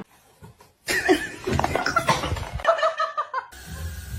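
A person laughing in short, broken chuckles, starting about a second in and stopping abruptly a little past halfway.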